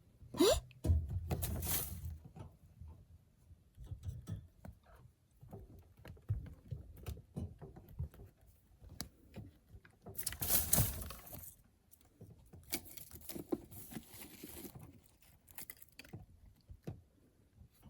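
Irregular scrabbling, rustling and soft thumps of animals moving about on the floor, louder in two stretches near the start and past the middle, with a brief rising squeak right at the start.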